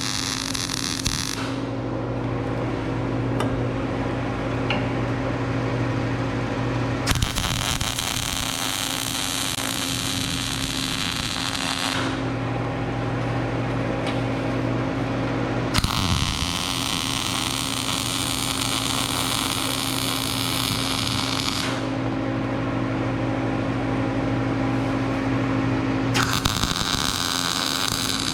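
Arc welding in short runs. Three bursts of crackling hiss, each about five to six seconds long, start with a click and are separated by pauses. A welding machine's steady hum runs underneath throughout.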